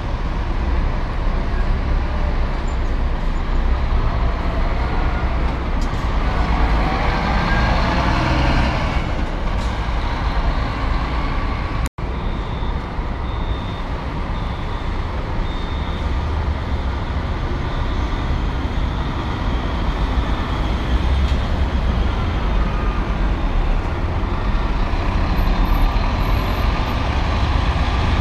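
Diesel engines of double-decker long-distance coaches running as they pull out. The first is a Scania K440, whose engine sound swells about 6 to 9 seconds in as it moves off. After a short break, a second coach runs with a row of short high beeps over a few seconds.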